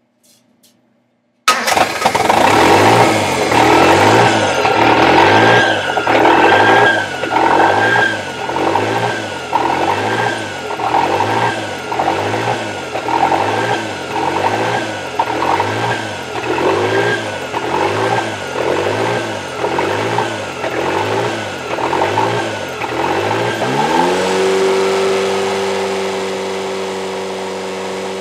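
Toyota 3E-TE turbocharged four-cylinder engine starting about a second and a half in, then bounce idling: the revs surge and sag about once a second in a rough, hunting idle. Near the end the note suddenly settles into a steady, even idle.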